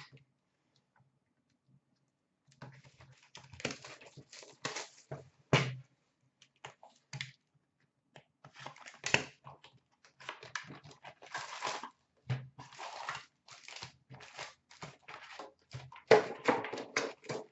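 A cardboard hockey card box being torn open and its foil-wrapped packs pulled out and handled: irregular tearing, scraping and crinkling that starts a couple of seconds in.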